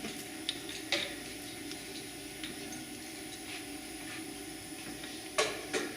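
Scattered light metallic clinks and taps of hand tools on brake hardware, with two louder clinks close together near the end, over a steady background hum.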